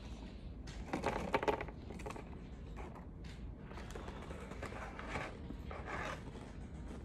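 Plastic snack bag crinkling as it is handled, loudest about a second in, then softer rustling and crackling as small crunchy cocoa snack pieces are tipped from the bag into the mouth.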